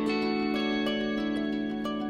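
Gentle instrumental music: plucked notes ringing over a steady held low note.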